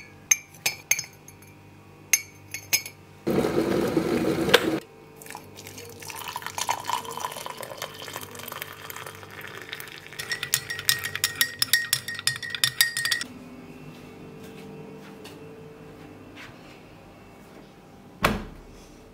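A metal spoon clinking against a ceramic mug, then a brief loud rush of noise about three seconds in. After that, water is poured into the mug while the spoon rattles and clinks against it for several seconds. A single thump comes near the end.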